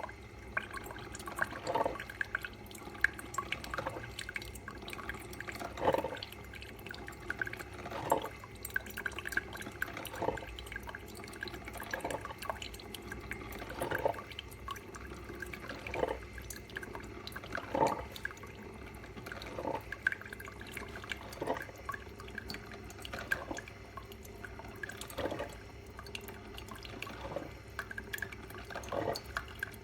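Filter coffee maker dripping, with single drops falling slowly and fairly regularly, about one every two seconds.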